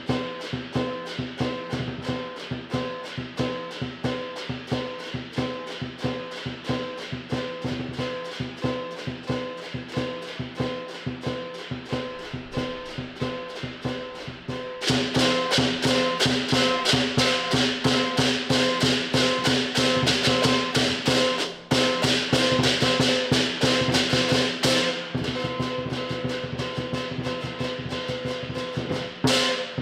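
Lion dance percussion music: a drum keeps a steady quick beat, and about halfway through the cymbals come in louder and clashing.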